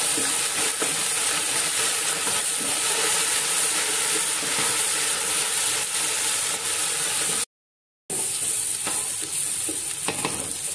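Ginger and garlic paste with fried onions sizzling in hot oil in a large stainless steel pot, while a metal spoon stirs and scrapes against the pot. The sound cuts out completely for a moment about seven and a half seconds in.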